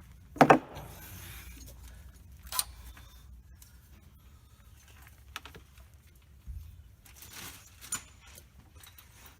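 Scattered metallic clinks and clatters of hand tools and small metal parts being handled, the loudest about half a second in, followed by several lighter ones.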